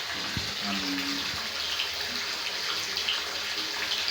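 Tap water running steadily into a bathtub, a constant hiss, with a few short low tones a little under a second in.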